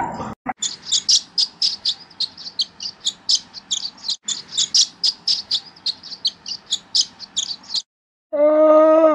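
Barn swallow twittering: a fast, steady run of short high chirps, several a second. Near the end the chirps stop and a camel's loud, low drawn-out call begins.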